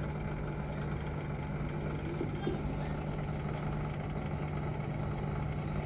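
Samsung EcoBubble 9/6 kg inverter washing machine running on test with freshly replaced drum bearings: a steady running hum with a constant low tone and no knocking or grinding.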